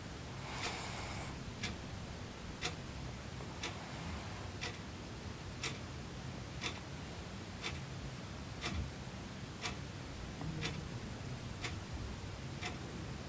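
A clock ticking steadily, about one tick a second.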